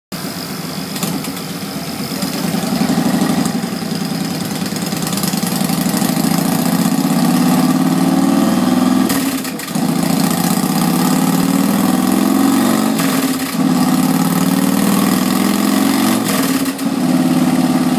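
2009 Yamaha Raider's air-cooled V-twin running hard on a chassis dynamometer during dyno tuning. Its pitch climbs steadily, drops suddenly and picks up again lower, three times.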